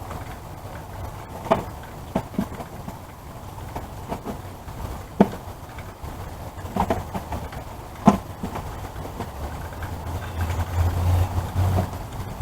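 Scattered light knocks and clicks of items being handled and set into a blessing box, over a low rumble. A low engine hum grows louder near the end.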